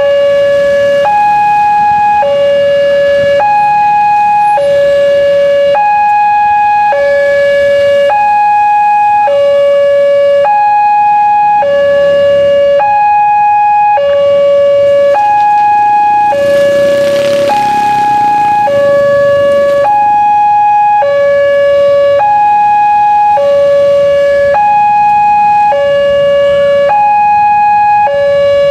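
Railway level-crossing warning siren sounding a loud two-tone alarm, alternating about once a second between a low tone of about 560 Hz and a high tone of about 840 Hz: the warning for an approaching train. A brief rush of noise rises over it about two-thirds of the way in.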